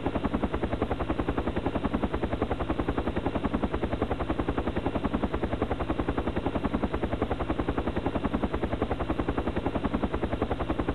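Mi-8 helicopter's main rotor beating steadily, a rapid even chop of several beats a second.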